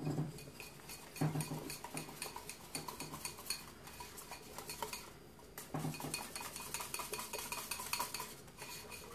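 A small metal utensil beating flour and water together in a small ceramic bowl, clinking rapidly against the bowl in two stretches with a short pause in between.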